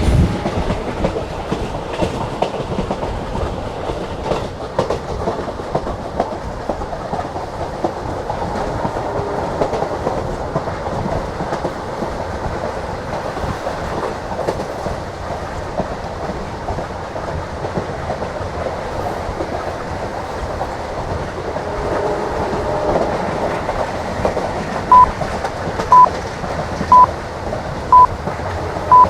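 A moving passenger train: a steady rumble with wheels clicking over the rail joints. About 25 seconds in, a run of short, loud, high beeps begins, one each second.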